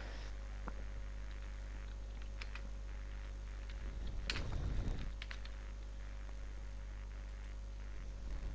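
Computer keyboard keys clicking in scattered clusters during typing, busiest about four to five seconds in, over a steady low electrical hum.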